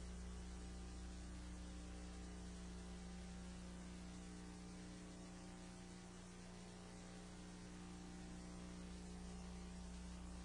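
Steady low electrical mains hum with fainter higher overtones and a light hiss, unchanging throughout: the idle meeting-room microphone and sound system picking up no speech.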